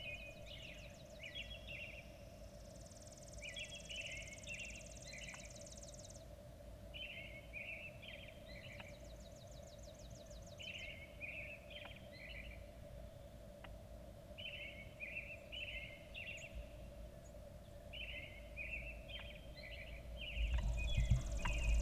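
Songbirds singing in the morning woods: one bird repeats a short jumbled phrase every three to four seconds, and a higher trill sounds now and then. A faint steady hum runs underneath. Near the end come a few knocks and rustles.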